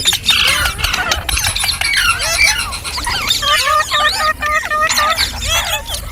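Green parrots chirping and squawking: a dense run of short, rapid, rising and falling calls from several birds at once, overlapping throughout.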